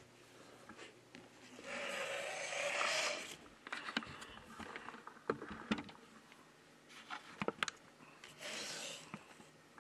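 Hands handling cables and a phone on a desk: two stretches of rubbing and scraping, with scattered clicks and taps in between, as a boot cable is hooked up between an opened iPhone and a bench power supply.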